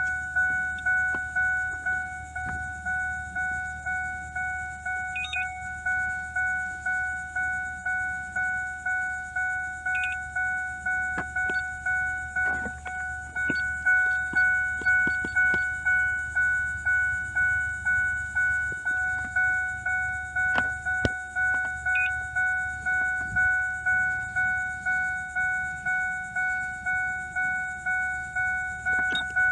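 Car's electronic warning chime dinging over and over at a steady pace, about three chimes every two seconds, each ding fading quickly, typical of a key-in-ignition or door-ajar reminder. A few light clicks are heard along with it.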